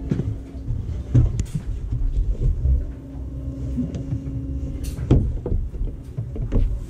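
Footsteps and knocks on the aluminium deck of a fishing boat over a steady low rumble, with sharp knocks about a second in and again about five seconds in.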